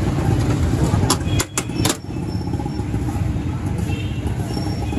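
Busy street din: a steady low traffic rumble with background chatter, broken by a quick run of sharp clicks or clatter about a second and a half in.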